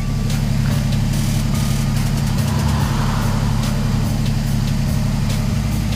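2005 Dodge Magnum's engine idling steadily with an even low hum.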